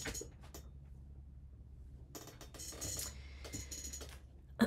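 Small items clicking and rattling as craft supplies are rummaged through and picked up, in a cluster starting about two seconds in, over a steady low hum.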